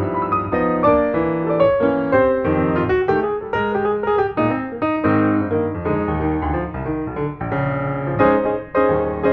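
Piano music with notes struck one after another and chords underneath, played at a moderate pace.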